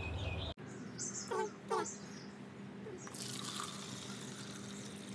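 Water pouring from a plastic measuring jug into a plastic bucket, a steady splashing that starts about three seconds in, after two short chirps.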